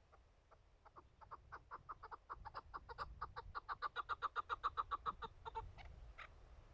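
Chukar partridge calling: a run of short clucking notes that quicken and grow louder to about six a second, then break off into a couple of single notes.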